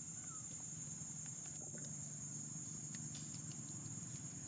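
A steady, high-pitched insect chorus drones without a break, over a low steady hum, with a few faint scattered ticks.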